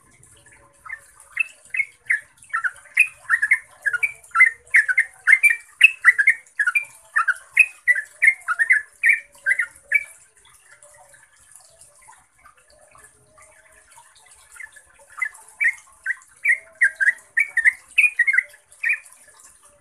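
Yellow-vented bulbul singing its long rolling song: a fast run of short, clear notes lasting about nine seconds, a pause, then a second, shorter run near the end.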